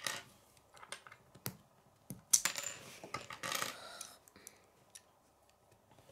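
K'nex plastic rods and connectors clicking and rattling as they are handled and snapped together, a scatter of sharp clicks with the loudest a little over two seconds in.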